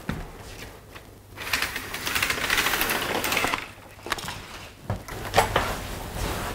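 Vertical window blinds being opened with the twist wand: the slats turn with a rapid clattering rattle lasting about two seconds, followed by a few separate clicks.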